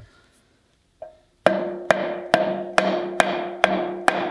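Hammer blows at an even pace, a little over two a second, starting about a second and a half in. Each blow leaves a short ringing tone as a tight-fitting polyurethane bushing is driven onto the eye of a Mack truck's camelback leaf spring.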